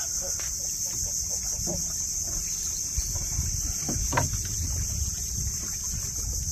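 A steady, high-pitched chorus of insects over a low rumble.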